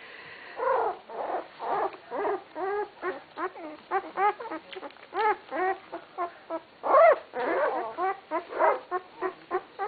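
Two-week-old puppies whimpering, a string of short high cries that rise and fall in pitch, about two a second, loudest about seven seconds in.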